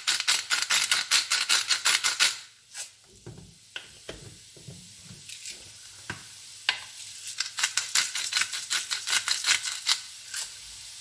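Salt grinder twisted over a frying pan: a rapid run of ratcheting clicks for about two seconds; after a pause a pepper mill is twisted for about three seconds, another run of rapid clicks. A faint sizzle of onions frying in the pan fills the gap.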